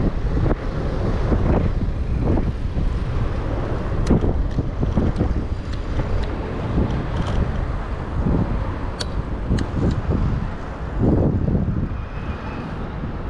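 Wind rushing over the microphone of a camera on a moving bicycle, with road traffic and a few sharp clicks.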